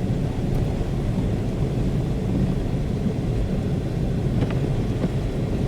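Steady low rumble of a car driving through slushy snow, heard from inside the cabin: engine and tyre noise, with a couple of faint ticks.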